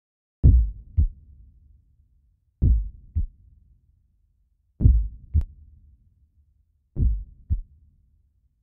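Heartbeat sound effect: deep lub-dub double thumps, four beats slowly repeating about every two seconds, the second thump of each pair shorter than the first.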